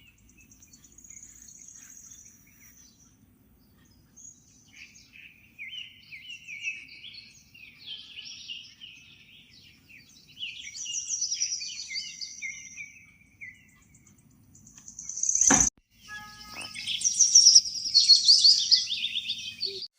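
Small birds chirping and singing in quick, repeated trills, busier in the second half, over a faint low hum. A single sharp click comes about three quarters of the way through.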